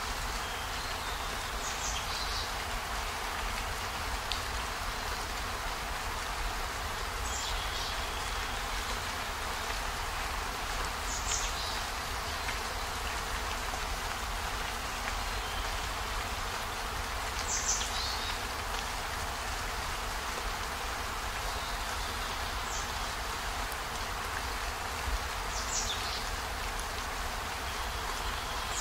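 Steady rain, an even hiss, with a short faint high-pitched sound every few seconds, about six times.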